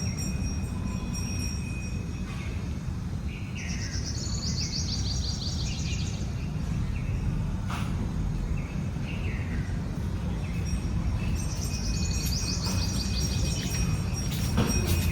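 Outdoor nature ambience: a steady low rumble of background noise, with a songbird singing two bursts of quick trilling phrases, one starting about four seconds in and another about twelve seconds in. Thin steady high tones run underneath.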